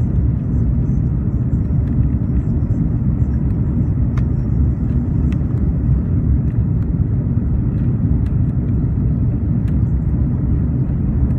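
Steady low rumble of an Airbus A340's engines and rushing air heard inside the passenger cabin during the climb after takeoff.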